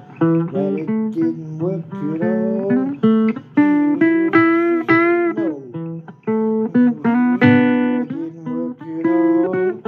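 Blues guitar instrumental break: single plucked notes, some of them bent in pitch, over steady lower notes.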